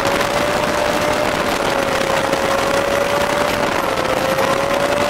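VW air-cooled flat-four engine of a Meyers Manx-style dune buggy, cruising at a nearly steady speed. It gives a steady whine that dips slightly in pitch about four seconds in, over wind and road noise.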